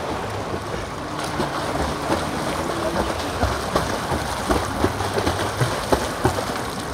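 Pool water splashing as swimmers stroke and kick: a steady wash of water noise with many short, sharp splashes, thickest from about the middle on.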